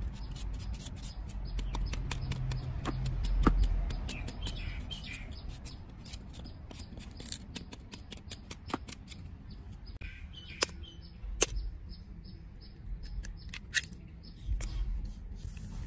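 A knife cutting slices off a raw sweet potato, with a run of sharp, irregular cutting clicks as the pieces drop onto soil.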